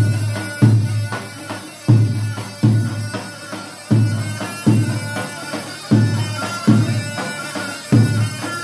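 Dabke music: a tabl, a large double-headed bass drum, struck with deep heavy strokes in pairs about every two seconds, with lighter strokes between, over a reedy mijwiz (double-reed pipe) melody.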